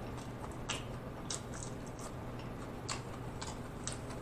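Close-miked chewing of food with a few soft, wet mouth clicks and lip smacks spaced irregularly.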